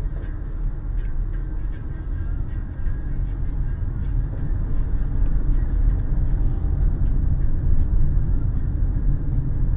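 Car driving through town, a steady low rumble of engine and road noise heard from inside the vehicle, growing a little louder about three seconds in.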